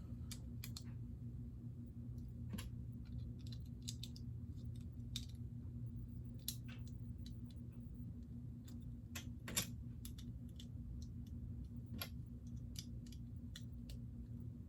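Scattered light clicks and taps of plastic Lego pieces being handled and pressed together, the loudest about halfway through, over a steady low hum.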